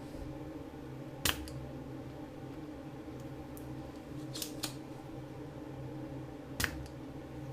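Spring-loaded desoldering pump (solder sucker) clicking as it is triggered and cocked: a sharp snap about a second in, two lighter clicks a little past four seconds, and another sharp snap near the end. A steady low hum runs underneath.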